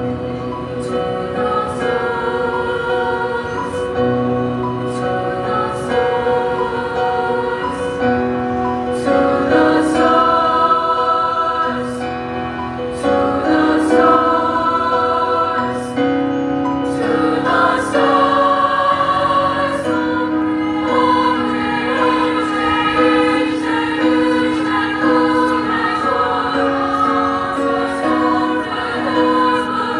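Treble choir of sopranos and altos singing in harmony with piano accompaniment, holding chords that shift every second or two.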